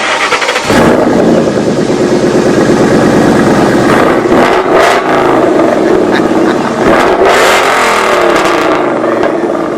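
A car engine running loudly and being revved, its pitch rising and falling several times about two-thirds of the way through.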